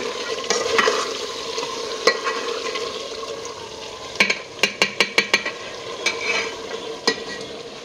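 A pot of potato-and-meat curry sizzles as water goes in for the broth, and the hiss fades over the first few seconds. A metal spoon stirs it, knocking against the pot now and then, with a quick run of about six clicks partway through.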